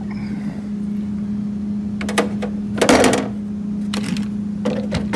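Tools and gear being handled on a metal tool cart's shelf: scattered knocks and rattles, with a louder clatter about three seconds in. A steady low hum from some machine runs underneath.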